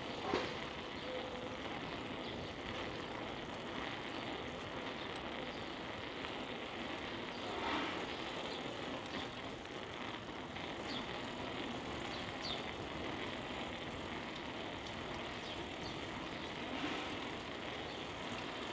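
Steady rushing noise of riding a bicycle, wind and road noise on the microphone, with a few short knocks.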